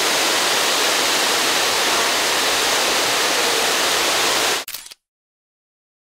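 Waterfall pouring, a steady hiss of falling water close by, which cuts off suddenly about five seconds in.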